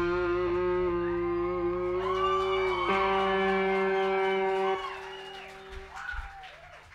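Live rock band with electric guitar letting a chord ring out, held steady with a few notes gliding in pitch above it. The chord cuts off about two-thirds of the way in, leaving only faint sound.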